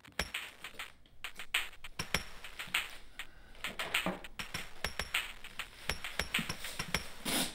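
Parcel being packed by hand: packing tape, bubble wrap crinkling and items set into a cardboard shipping box, making a run of rustles, short scrapes and light knocks.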